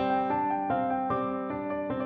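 Background music: a piano melody of held notes that change about two or three times a second.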